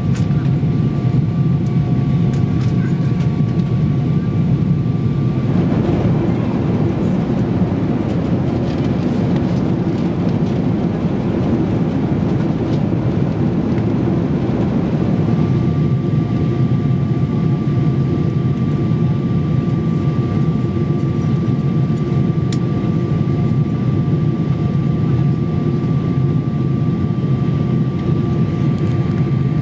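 Boeing 777 cabin noise in flight: a steady loud rush of airflow and engine drone, with a steady whine from the engines that drops out for about ten seconds partway through and then returns.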